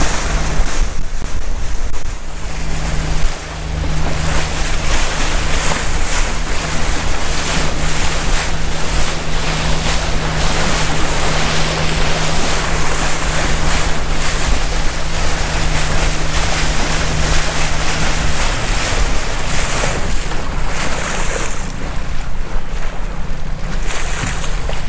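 Small motorboat's engine running steadily under way, with water rushing past the hull and heavy wind noise on the microphone. About eighteen seconds in, the engine note drops as the boat slows.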